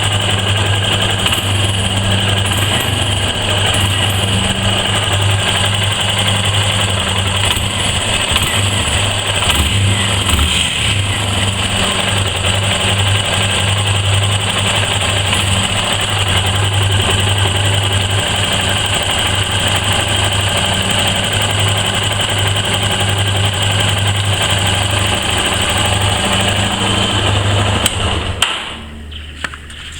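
Yamaha XTZ 250 Lander's single-cylinder engine running steadily, then shut off near the end. It is the engine the owner reports making a strange noise along with a loss of power.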